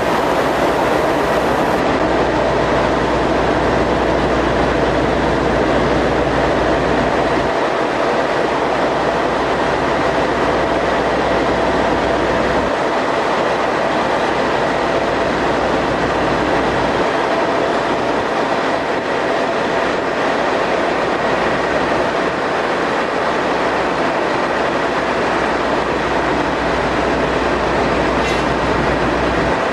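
Loud, steady mechanical noise: an even rushing din with a low hum underneath and a faint steady tone. It goes on unbroken, with no distinct knocks or strokes.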